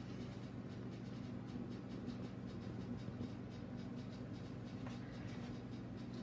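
Faint scratching and rustling of a puppy being handled on a rubber-topped grooming table, over a steady low hum of the room.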